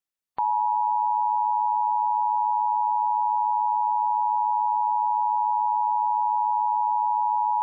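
Emergency Alert System attention signal: a steady, unbroken two-tone alarm tone near 900 Hz (the standard 853 and 960 Hz pair sounding together). It starts about half a second in and sounds the alert ahead of the test message.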